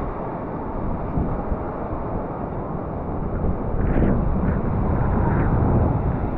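Wind buffeting the microphone as a steady low rumble, over the wash of breaking sea surf.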